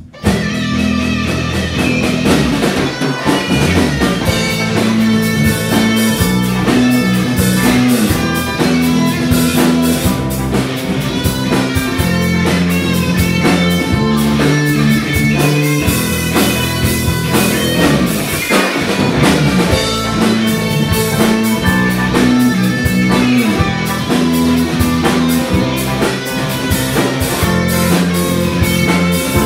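Live rock band kicking in together at full volume about a quarter second in, then playing on steadily: electric guitar, bass guitar, drum kit and keyboard, with a repeating bass line underneath.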